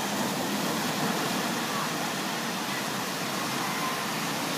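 Small waves breaking and washing up the sand: a steady hiss of surf.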